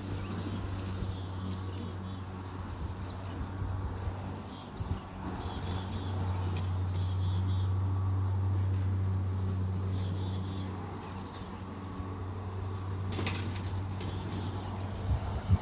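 Walk-behind lawn mower running with a steady low hum that grows louder in the middle and then eases off. Birds chirp over it, and there is a sharp knock near the end.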